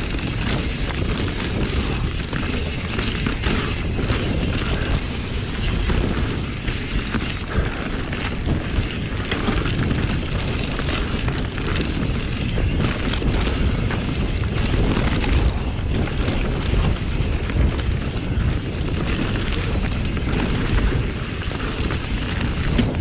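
Wind buffeting the microphone as a 2021 Pivot Switchblade mountain bike rolls fast over trail, with steady tyre rumble and frequent short rattles and knocks from the bike over rough ground.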